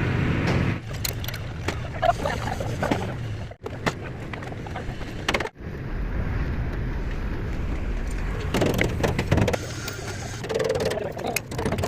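Several short clips cut abruptly together: a low, steady engine rumble with scattered sharp metal knocks and clicks.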